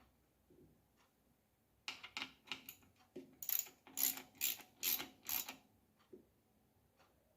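Mechanical clicking and rattling from a small hand-worked mechanism: a quick run of sharp clicks, then about five louder bursts, roughly two a second, stopping suddenly.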